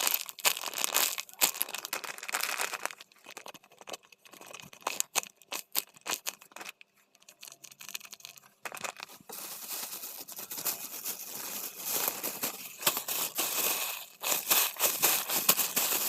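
Plastic packaging crinkling and rustling as it is handled, with a run of sharp crackles a few seconds in and heavier rustling in the second half.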